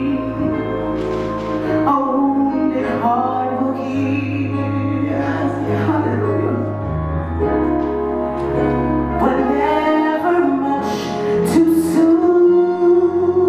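Slow church music: singing over instrumental accompaniment, with long held bass notes beneath a wavering melody that slides from note to note.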